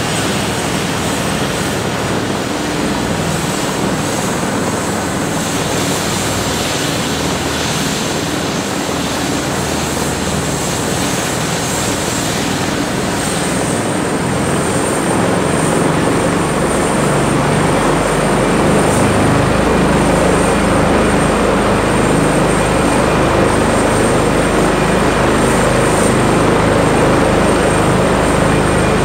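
Airbus H145 rescue helicopter's twin turbine engines running up on the ground during start-up, with the rotor turning. A steady high turbine whine steps up in pitch about halfway through, and the rotor noise grows louder soon after as the helicopter comes up to speed.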